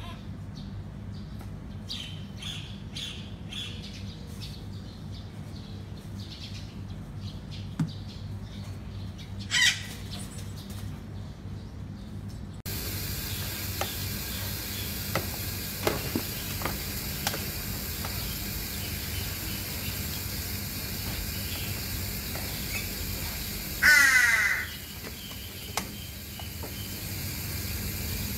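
Great hornbill giving harsh, caw-like calls: a short one about ten seconds in and a louder, longer one a few seconds before the end. A steady low hum runs underneath.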